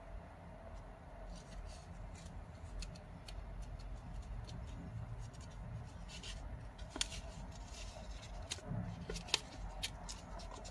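Folded origami paper crinkling and crackling in the fingers as it is pinched and creased: a scatter of small dry clicks and rustles, with a couple of sharper crackles later on.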